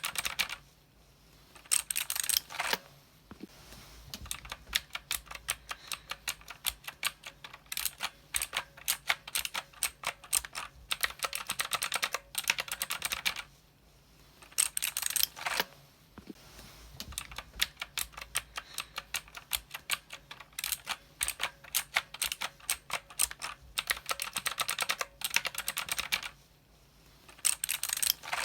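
Mechanical keyboard typing: a fast, continuous run of key clicks with a few short pauses and several louder bursts of keystrokes.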